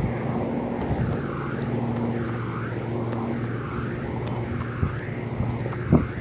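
A steady low engine drone with a hiss above it that wavers up and down in slow sweeps, and a brief thump near the end.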